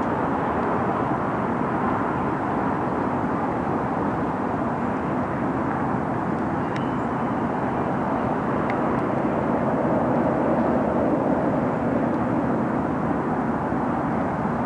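Manifest freight train's boxcars and covered hoppers rolling past: a steady rumble of steel wheels on rail, with two brief high clicks near the middle.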